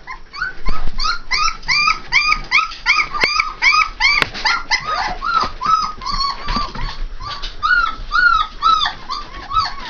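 Three-and-a-half-week-old Saint Bernard puppies whining: a rapid, unbroken string of short high cries, each rising and falling in pitch, about three a second.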